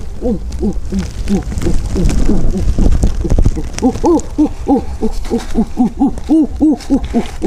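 A string of short hooting calls, each rising and falling in pitch, about two to three a second and louder from about four seconds in, over a low rumble.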